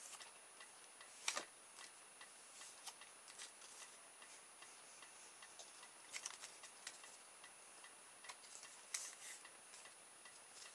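Faint crinkles and clicks of a stiff, shiny plastic strip being handled and flexed by hand, the loudest crackle about a second in. A faint, evenly spaced ticking runs underneath.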